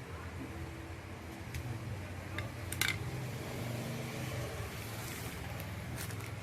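Steady low room hum, like a fan or air conditioner, with a few light clicks and taps scattered through, the clearest a little before the 3-second mark.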